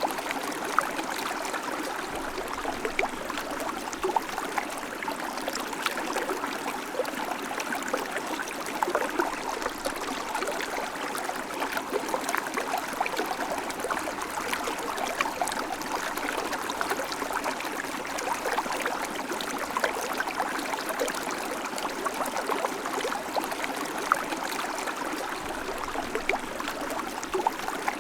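River water flowing and babbling steadily over rocks, with many small splashes and gurgles.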